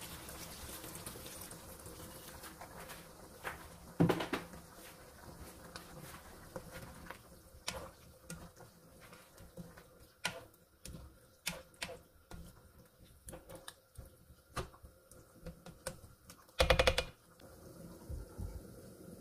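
Water pouring into a nonstick wok of simmering stew, then a spatula stirring and knocking against the pan in scattered clicks and taps. A loud brief clatter of cookware comes near the end, as the glass lid is handled.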